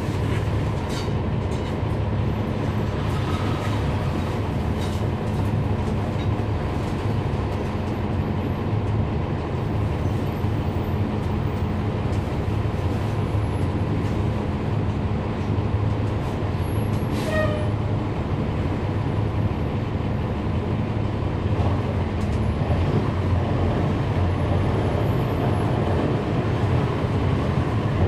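Inside a NABI 40-foot transit bus with a Cummins ISL9 inline-six diesel and ZF Ecolife six-speed automatic transmission: steady engine and drivetrain rumble, with a thin whine from the transmission. A brief high squeak comes about seventeen seconds in.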